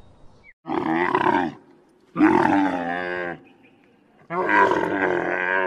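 A large animal calling three times, each a long call of about a second with a wavering pitch, with short pauses between.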